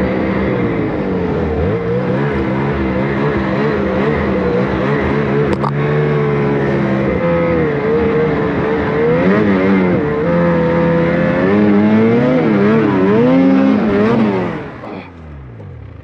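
Snowmobile engine running under throttle through deep snow, its pitch rising and falling as the rider works the throttle and getting louder near the end. Just before the end the engine sound drops away sharply as the sled plunges into a hidden dip and buries its nose in a snowbank, stuck.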